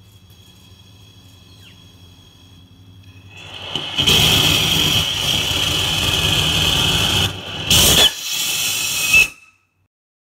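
Paraffin-wax and gaseous-oxygen hybrid rocket motor lighting about three and a half seconds in and burning with a loud, rough rushing noise that dips and surges briefly near the end, then cuts off suddenly. The burn is unstable: extreme combustion instability from insufficient oxygen flow, so the motor makes no measurable thrust.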